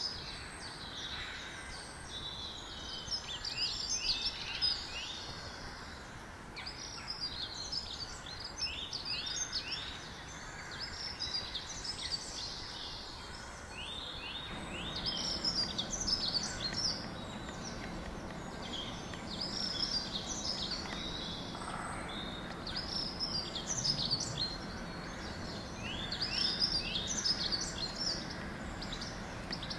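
Small birds chirping in repeated bursts of quick, high, downward-sweeping notes over steady outdoor background noise; a low hum joins about halfway through.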